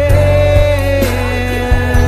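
Gospel worship song: a voice sings long held notes that change pitch about a second in, over a steady bass.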